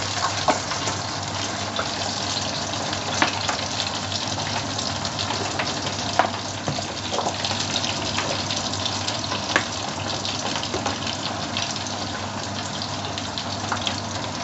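A wide pot of beef rib soup (sop konro) at a rolling boil, bubbling steadily. In the second half a metal ladle stirs through it, with scattered sharp clinks.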